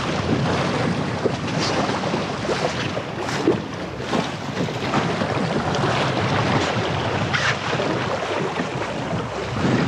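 Small RS Quba sailing dinghy under way in a breeze: water rushing and splashing along the hull in irregular splashes, with wind buffeting the microphone.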